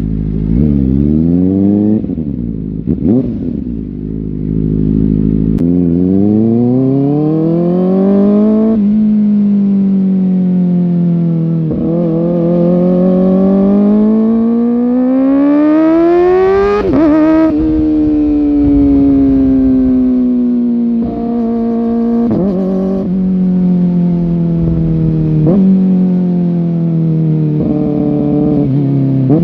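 Kawasaki ZX-4R's four-cylinder engine under way, revs climbing and dropping as it shifts through gears. A long climb in revs ends in a sharp drop about two-thirds through, then the engine pulls at steadier, gently easing revs with short blips.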